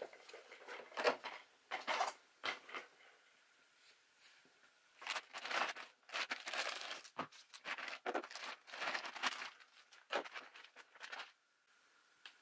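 Hands handling small plastic parts and screws of a 1/10 RC truggy: a series of short rustling and scraping bursts with small clicks, stopping about a second before the end.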